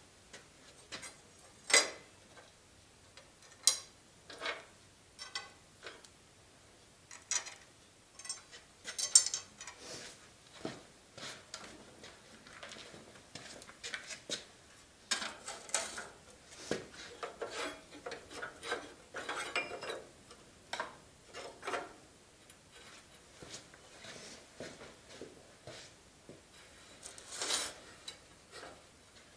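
Scattered, irregular metallic clanks, clicks and rattles of tools and steel parts being handled as a small engine is lifted and set onto a garden tractor's frame.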